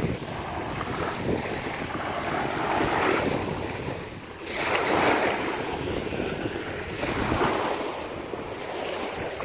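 Small waves washing up on a sandy beach, surging and ebbing every couple of seconds, with wind buffeting the microphone.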